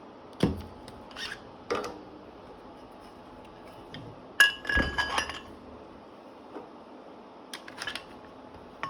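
Weight plate clanking on a barbell sleeve as it is slid into place: a few sharp knocks, then the loudest clank about four and a half seconds in, ringing briefly.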